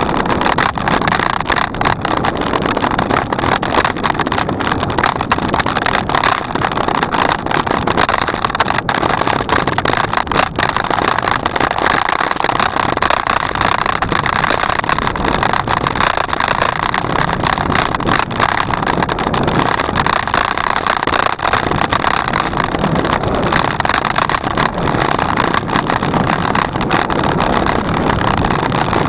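Steady rushing noise of a bicycle in motion, with frequent small rattles and clicks.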